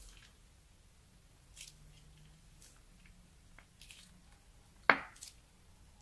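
Clear slime being piped from a piping bag into a tray of slime: soft, sticky clicks and crackles as the stream lands and folds, then one loud, sharp pop a little before the end as an air pocket bursts.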